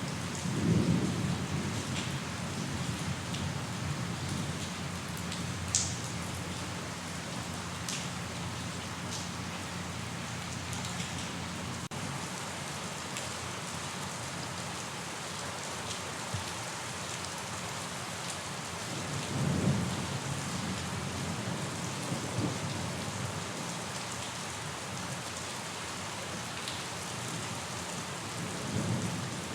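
Steady rainfall, an even hiss with a few sharp drip ticks, broken by three short low rumbles of thunder: about a second in, about two-thirds of the way through, and near the end.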